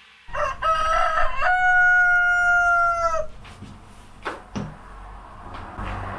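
Rooster crowing: a few short rising notes, then one long held note that sags slightly and stops about three seconds in. A couple of light knocks follow.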